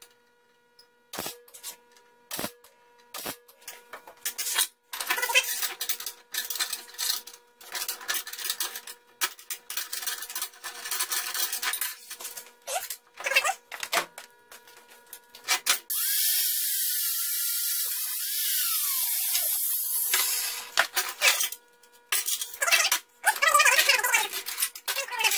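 Steel parts clinking and rattling on a steel workbench as a threaded all-thread rod is worked out of a square steel tube and the rods are handled, in many sharp metallic clicks with some ringing. In the second half comes a steady hiss lasting about four seconds, which ends with a falling tone.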